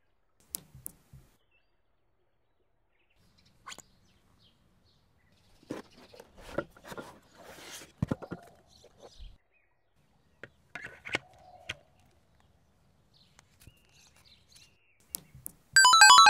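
Scattered short clicks and brief bursts of noise, with faint chirps. Near the end a loud electronic tone starts suddenly, pulsing rapidly and slowly fading.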